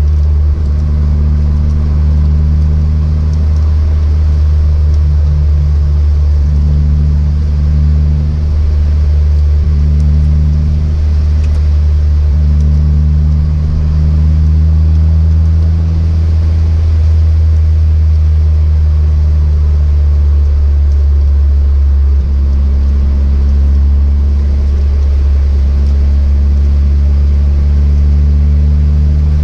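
Car engine running at a steady cruise, a loud, even low drone with no clear rise or fall in pitch.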